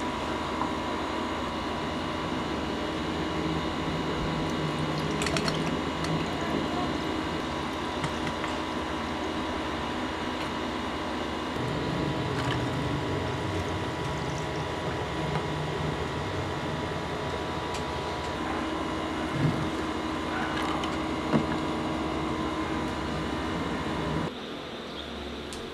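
A plastic cap twisted open on a small bottle of coffee, then coffee poured over ice in a glass, with a couple of light clinks near the end. A steady mechanical hum runs underneath throughout.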